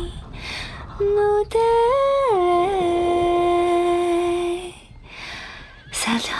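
A woman humming a slow wordless melody: long held notes, one stepping up and then sliding back down about two seconds in, with short breathy pauses between phrases.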